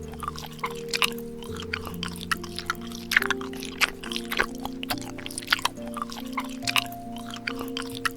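Background music with held notes that change about once a second, over a steady scatter of short clicks and taps.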